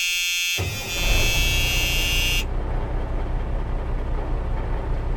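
A vehicle horn blast, then a heavy engine rumble starts about half a second in, with a horn tone sounding over it until about two and a half seconds in, after which the steady low rumble continues.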